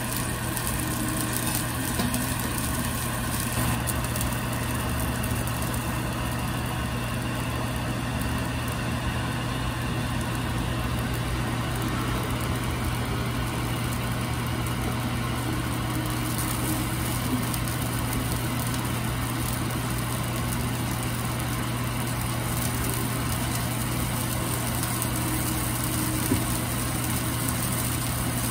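Steady low machine hum of a kitchen stall, over the sizzle of beaten egg frying in a square metal mould on a flat-top griddle, with a few light knocks of a metal spatula.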